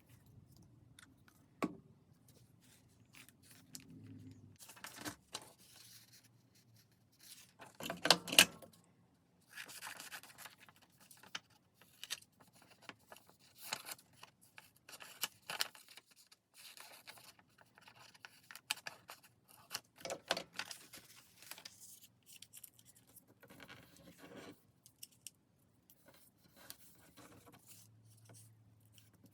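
Paper being handled for journal crafting: scattered short rustles and scrapes, with the loudest burst about eight seconds in.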